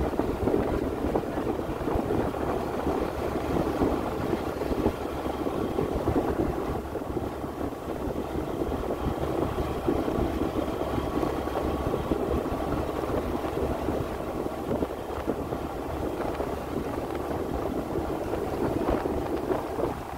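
Steady rush of wind buffeting the microphone while moving along a road, with a vehicle's engine running underneath.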